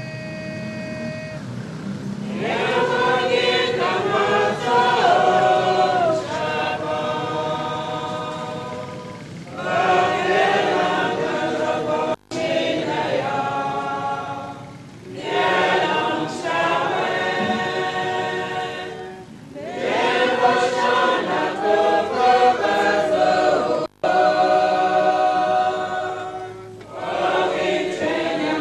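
A group of voices singing a hymn together in long phrases of several seconds, with short breaths between them. The sound drops out for an instant twice.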